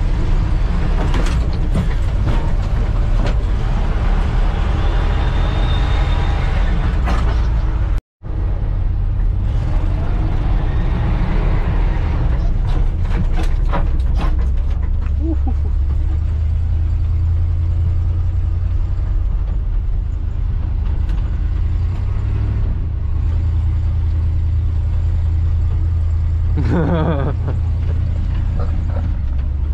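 Old GM squarebody pickup's engine running hard, heard from inside the cab, with the cab rattling and creaking over the rough dirt track. The sound cuts out for an instant about eight seconds in.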